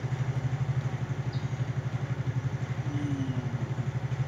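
A small engine idling steadily with an even low pulse of about ten beats a second.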